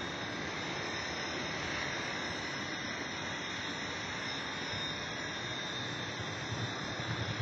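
450-size electric 3D radio-controlled helicopter hovering, its rotor and motor running steadily.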